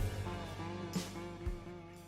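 Background music with guitar and drums, fading out near the end.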